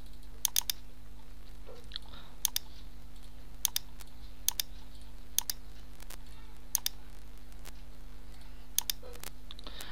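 Computer mouse button clicks, about eight in all, most coming as quick pairs, spaced a second or so apart. A steady low electrical hum runs underneath.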